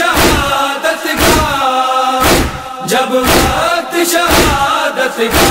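Group of reciters chanting a mournful Urdu nauha, with sharp slaps at a steady beat about once a second: the chest-beating (matam) that keeps time in a nauha.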